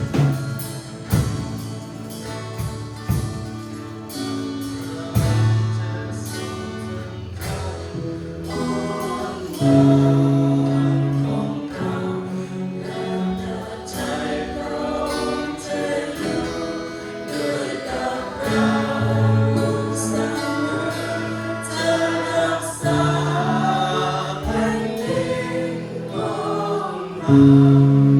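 A church worship team singing a Christian praise song with a band, with drum hits in the first few seconds.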